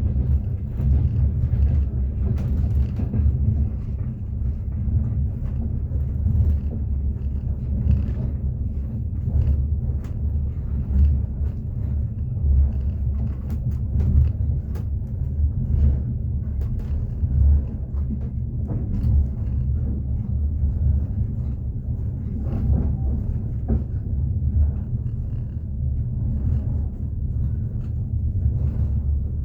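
A moving train heard from inside the carriage: a steady low rumble of wheels on the rails, with faint, irregular knocks through it.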